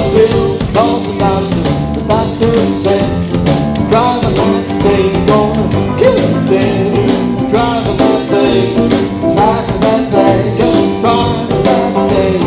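Live roots band playing an upbeat instrumental break between verses, with gliding lead lines over a steady drum beat.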